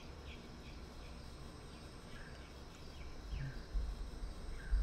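Night-time forest ambience in an animated show's soundtrack: short falling chirps of small creatures, spaced out, over a low steady rumble. Two deep thumps come near the end.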